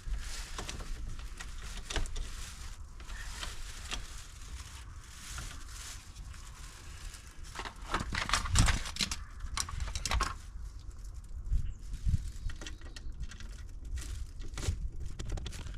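Scattered clicks, knocks and rustling of hands working heavy electrical wire and a receptacle into place, the loudest knocks about halfway through, over a low steady rumble.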